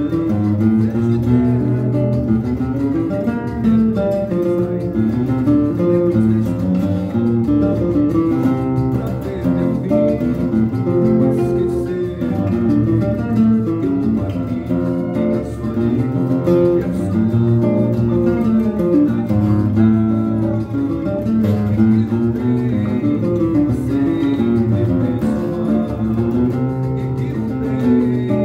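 Brazilian seven-string nylon-string guitar (violão de sete cordas) playing a continuous line of plucked notes, running low bass lines mixed with chords.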